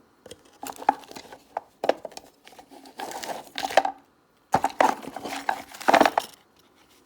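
Rummaging through a sewing-machine drawer: small items such as crochet hooks, zippers and thread knocking, clicking and rustling against one another and the wooden drawer, in irregular handling noises.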